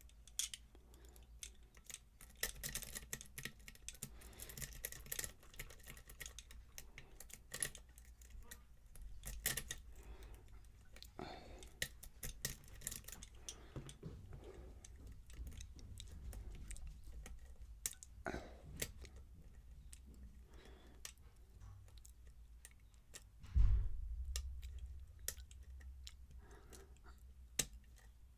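Lock picks raking and clicking against the pins of a pin-tumbler lock: irregular small metallic clicks and ticks, with one dull thump from the lock or tools being handled late on.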